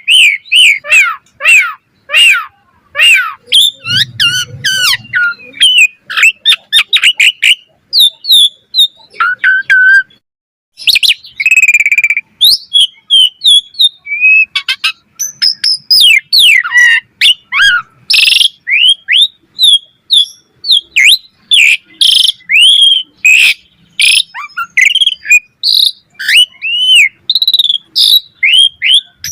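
Asian pied starling (jalak suren) singing: a rapid, varied stream of whistles, chirps and clicks, many notes sliding up or down, with a brief pause about ten seconds in.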